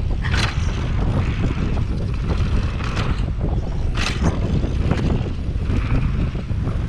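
Mountain bike ridden fast down a dirt trail: wind buffeting the GoPro microphone and tyres rumbling over packed dirt. There are three brief knocks, near the start, about three seconds in and about four seconds in.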